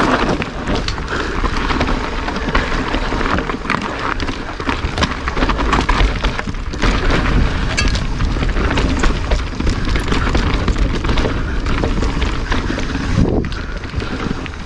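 Mountain bike descending a dirt singletrack: tyres rolling over dirt, roots and leaves, with the bike clattering over bumps, under a steady deep rumble of wind buffeting the helmet-camera microphone.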